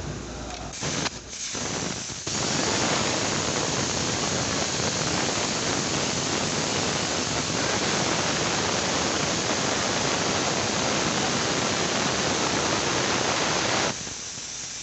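A high-pressure jet gives a loud, steady rushing hiss. It starts about two seconds in and cuts off suddenly near the end.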